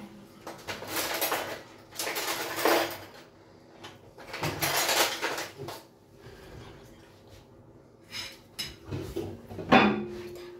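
Slow swishing strokes of a silicone pastry brush spreading beaten egg over raw puff pastry on baking paper, three strokes about a second each, then a sharp knock near the end.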